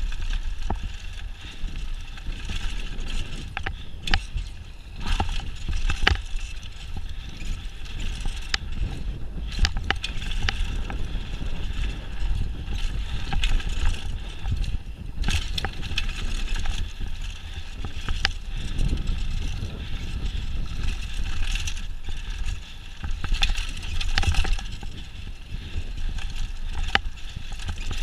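Mountain bike riding fast down a dirt trail: tyres rolling on packed dirt under a steady deep wind rumble, with frequent clicks and knocks as the bike rattles over bumps.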